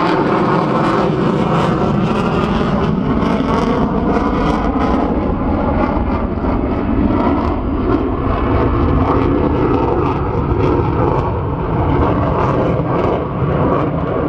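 Jet aircraft engines running, a loud, steady roar with slowly shifting tones.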